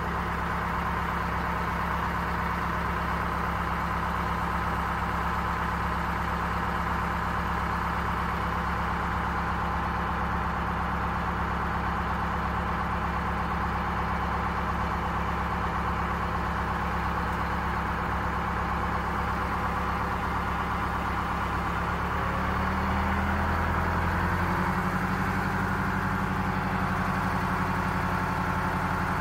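A 1964 GM PD4106 bus's rear-mounted diesel engine idling steadily, run just after a refill to circulate fresh transmission fluid and coolant. A little over two-thirds of the way through, its speed and loudness rise slightly.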